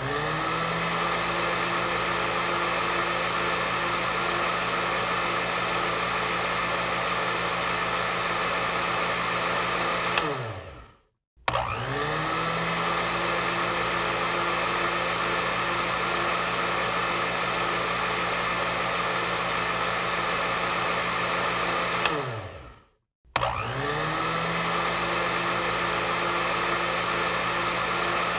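Electric kitchen mixer motor switched on three times. Each time it spins up with a rising whine, runs steadily for about ten seconds, then is switched off and winds down with a falling whine to silence before starting again.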